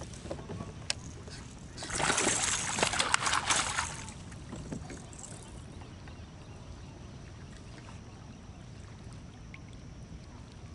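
A hooked bass thrashing and splashing at the kayak's side for about two seconds, a loud burst of water and rattling that starts about two seconds in. Faint ticks and a low steady background follow.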